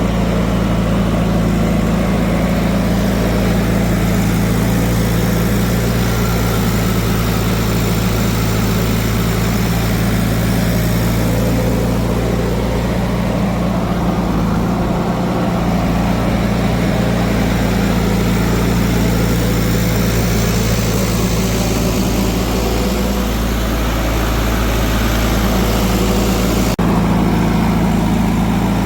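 Heavy diesel engine running steadily at low revs, a deep even hum with no change in speed.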